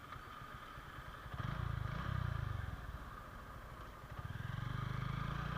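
Motorcycle engine running, just fitted with a new timing chain and adjuster. It rises in revs about a second in, eases off, then builds steadily again toward the end.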